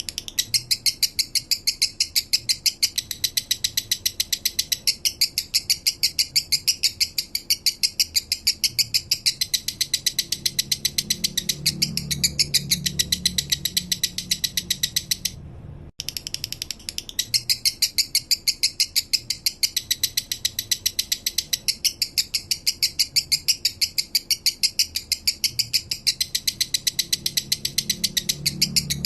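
Male lovebird singing a minor-type song: a fast, even run of sharp, high chirps, several a second, which breaks off briefly about halfway through and starts again.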